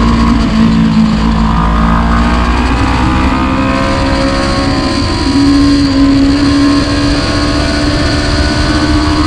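Sport motorcycle engine running hard on a racetrack, heard from a camera on the bike over a steady rush of wind. The engine note falls in steps over the first few seconds through a corner, then climbs again about five seconds in as the rider gets back on the throttle.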